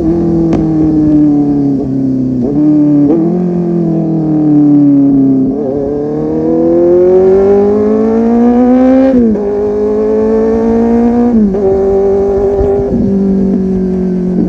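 Kawasaki Z800 inline-four engine through an aftermarket full-system exhaust, under way. The engine note falls for the first five seconds or so as the bike slows, then climbs under acceleration until a gear change about nine seconds in. After that it drops in steps at further shifts and holds fairly steady between them.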